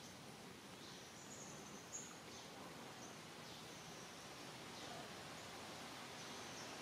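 Faint outdoor ambience: an even hiss with scattered short, high chirps, and one small click about two seconds in.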